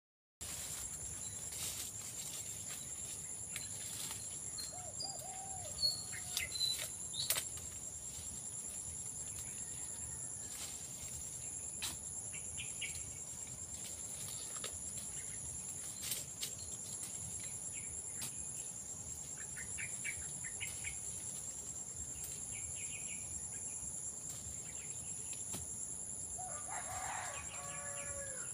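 A steady, high-pitched drone of insects, with a few short bird chirps several seconds in. Scattered sharp clicks, and a chicken calling near the end.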